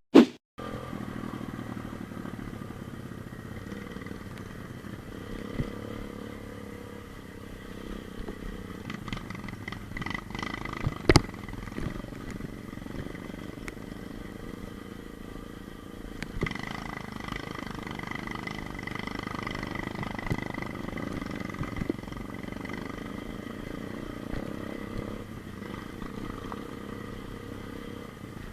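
125 cc pit bike engine running under way, rising and falling with the throttle, with one sharp knock about eleven seconds in.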